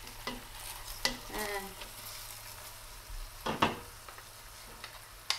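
Chicken pieces with onions and herbs frying in olive oil in a stainless steel pan, with a steady sizzle. Wooden spoons stir and turn the pieces, knocking against the pan a few times.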